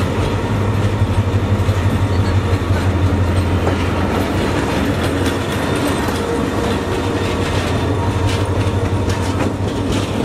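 Diesel locomotive engine running with a steady low drone as it pulls out and passes close by. Near the end the passenger coaches follow, their wheels clicking over the rail joints.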